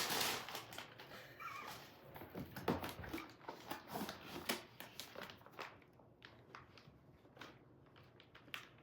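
A cardboard gift box being handled and opened by hand: a rustling burst at the start, then scattered taps, clicks and scrapes of cardboard that thin out and grow fainter over the second half.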